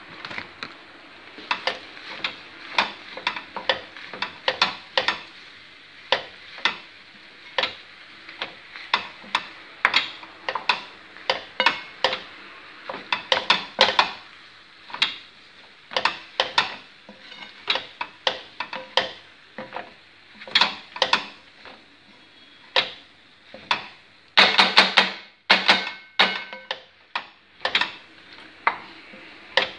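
A utensil stirring and tossing penne in a nonstick frying pan, knocking and scraping against the pan in irregular clicks about once or twice a second. Near the end comes a quick run of louder knocks.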